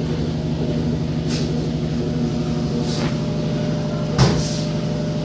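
Continental Evolution automatic washing machine running a wash with a load of rugs: a steady motor hum, with three short swishes, the loudest with a thump about four seconds in.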